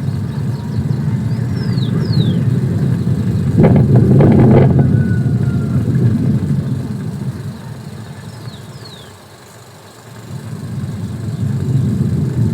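A motor vehicle going by, its low engine rumble swelling to a peak with a brief rattle about four seconds in, then fading, before another vehicle approaches near the end. A few short, high, falling chirps sound over it.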